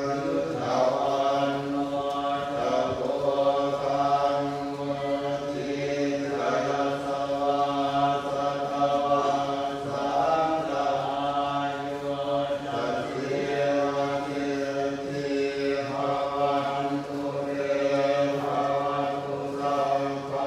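Thai Buddhist monks chanting in Pali together, a steady droning recitation of several low male voices.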